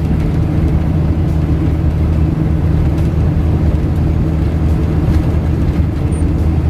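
Steady engine and tyre drone heard from inside a vehicle driving along a highway, a constant low hum without changes.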